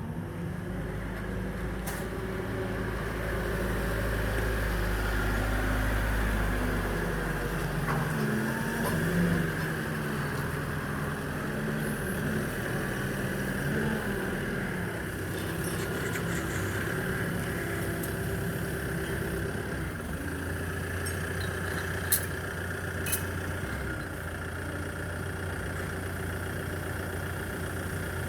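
Engine of a work vehicle running during container unloading, its pitch shifting up and down as it works, with a few sharp knocks of metal.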